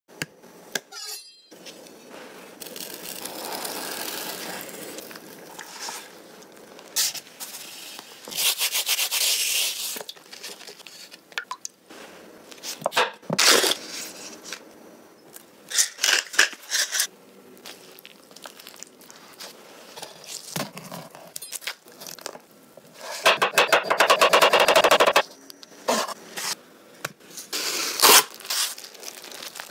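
Close-up food-preparation sounds: a metal spoon scraping soft cream cheese from a plastic tub, and plastic cling film crinkling and tearing as it is pulled over an avocado-topped salmon roll. These come as irregular short bursts, the loudest about two thirds of the way in.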